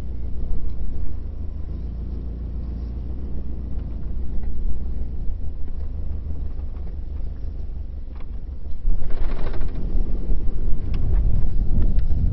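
Subaru STI's freshly built EJ207 turbocharged flat-four heard from inside the cabin on the move: a steady low engine drone with road noise, getting louder about nine seconds in.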